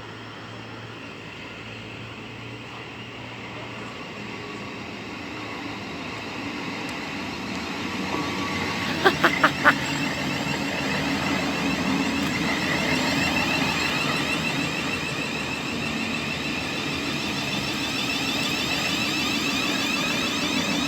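A train approaching and running through the station, its noise growing steadily louder, with four quick sharp clicks in a row about halfway through.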